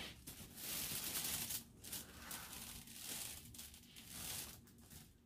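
Clothes being handled and moved, the fabric rustling in several swishes.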